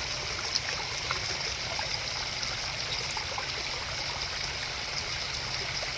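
A koi pond's waterfall splashing and trickling steadily, a continuous even rush of water.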